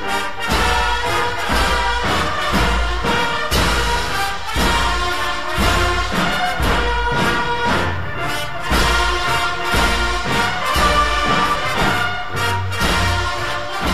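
Instrumental orchestral-style music with brass over a steady low beat.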